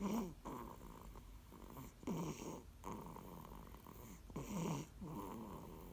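A sleeping dog snoring, a rattling snore with each breath, the louder snores coming about every two seconds.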